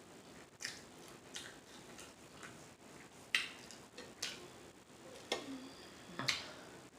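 Close-up wet mouth smacks while chewing food, about six sharp smacks spaced roughly a second apart.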